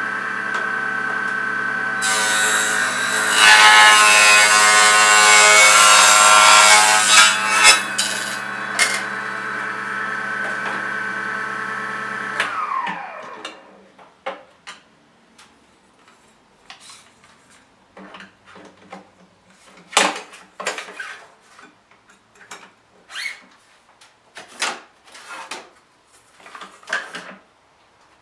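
Proxxon miniature table saw running, its blade cutting through thin poplar plywood for several seconds, then switched off about halfway and winding down with a falling pitch. Afterwards there are scattered light knocks and short scrapes as the cut pieces are handled and their edges sanded by hand.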